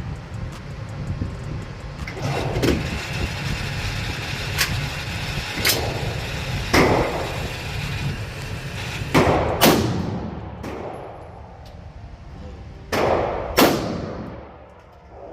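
Gunshots at a shooting range: about eight single shots at irregular spacing of one to three seconds, each followed by a short echoing tail, the loudest coming in two pairs in the second half, over a steady low rumble.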